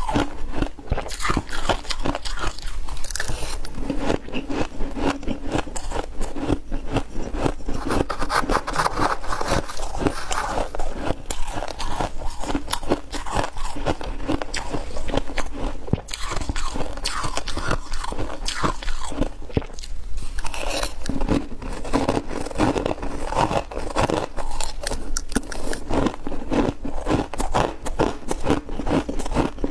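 Close-up crunching of ice being bitten and chewed in a rapid, continuous run of crackly crunches.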